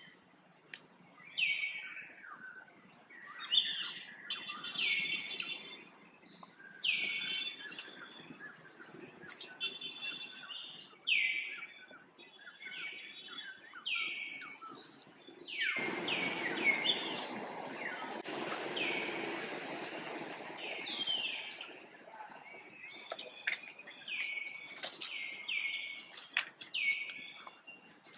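Repeated short, high chirps that fall in pitch, scattered irregularly over a steady faint high hum. About halfway through, several seconds of broad rushing noise rise over them.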